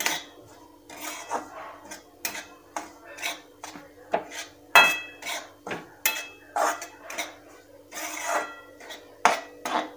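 Flat metal spatula scraping and stirring dry semolina in a metal kadhai while it dry-roasts: irregular scrapes and clinks about once or twice a second, some with a short metallic ring. A faint steady hum sits underneath.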